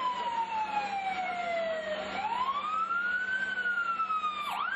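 Emergency vehicle siren wailing: its pitch slides slowly down, climbs back up about two seconds in, then drifts down again, with two quick dips in pitch near the end.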